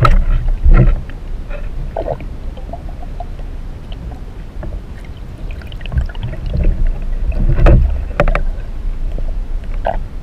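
Underwater sound through a submerged handheld camera: a constant muffled rumble of moving water against the housing. It swells louder near the start and again about three-quarters of the way through, with scattered sharp clicks and knocks.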